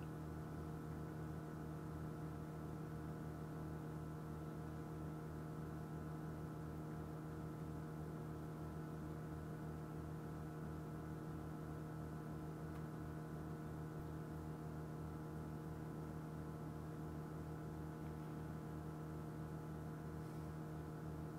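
Steady low electrical-sounding hum with a fast, even throbbing underneath, at low level and unchanging throughout.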